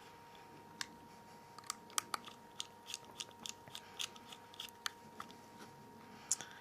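Small irregular clicks and ticks, two or three a second, of a T5 Torx screwdriver and tiny screws being worked into a Nokia N8 phone's screen frame.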